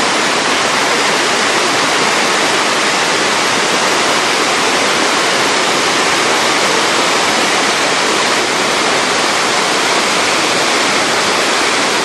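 Shirahige Falls rushing steadily, falling water and the river below making an even roar that holds the same level throughout.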